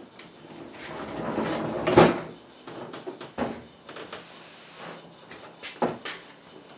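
An oak drop-leaf table being shifted on a workbench: a scraping slide that builds to one sharp wooden knock, then a few lighter knocks as the leaf and clamp are handled.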